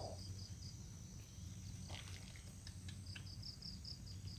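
An insect chirping in short high pulses, about four a second, stopping and starting again partway through, with a few faint clicks near the middle.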